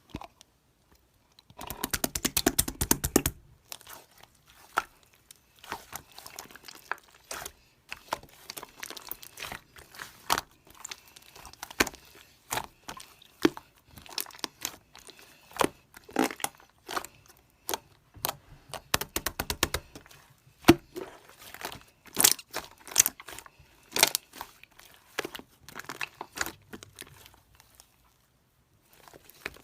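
Slime being squished and stretched by hand, giving irregular crackling clicks and pops, with dense runs of rapid clicks about two seconds in and again near the middle.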